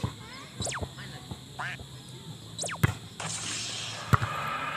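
A volleyball being struck by hand: a few sharp smacks, the loudest about three seconds in and another a second later. Short, high, falling calls are heard between the hits, and voices come in near the end.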